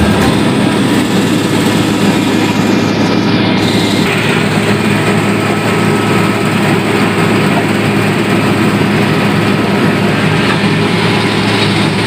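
Engine of a heavy road-work machine grading a dirt road, running steadily at a constant pitch with a loud, even mechanical noise over a low hum.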